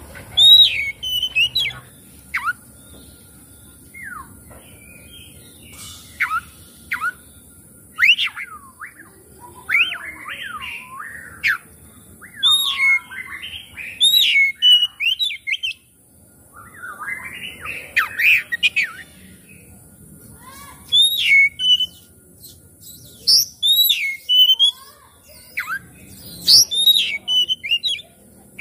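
Oriental magpie-robin (kacer) in full song: loud whistled phrases with sharp rising and falling notes mixed with scratchier chattering notes, coming in bursts with pauses of a second or two between them. It is the kind of song that kacer keepers play as a lure (pancingan) to set other kacer singing and fanning their tails.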